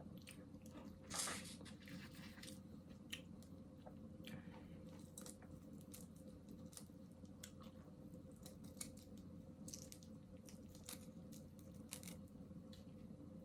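Quiet close-up eating sounds: chewing with scattered small clicks and mouth smacks, a slightly louder one about a second in.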